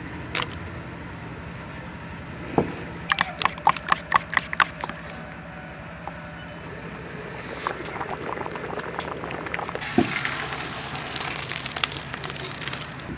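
A metal spoon clinking quickly against a ceramic bowl while beating eggs, about ten sharp clicks in under two seconds. Near the end a knock, then a hissing noise.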